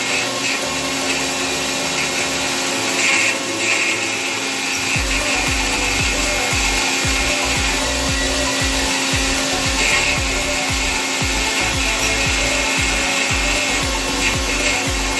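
Resemin Raptor 55 2R long-hole drill rig drilling rock with a 64 mm bit: loud, steady machine noise with a constant hum. About five seconds in, a rapid low pulsing of several beats a second sets in.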